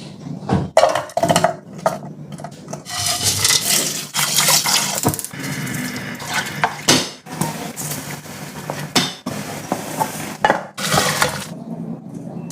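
Kitchen cooking sounds: metal utensils clinking and clattering against pots and pans, with stretches of liquid pouring and stirring. The sounds change abruptly several times.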